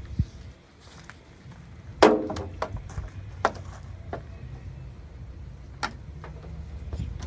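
A run of sharp knocks and clacks from hard objects being handled, the loudest about two seconds in with a brief ringing, then a few lighter ones spaced irregularly, over a low rumble.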